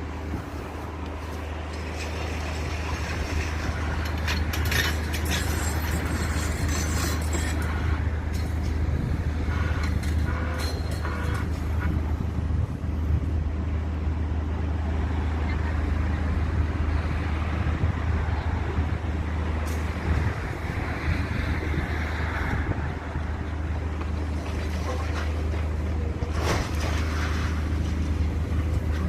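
A large engine running steadily with a low, even rumble, with scattered clicks and hiss over it.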